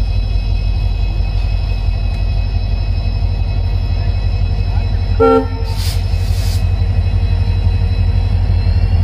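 Indian Railways diesel locomotive running past with a steady low engine drone. A short horn toot comes about five seconds in, followed by a brief hiss, and a faint rising whine appears near the end.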